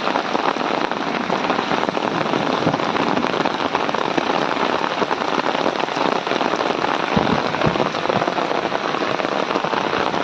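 Hailstorm: hailstones and rain pelting down together in a steady, dense clatter of countless small impacts.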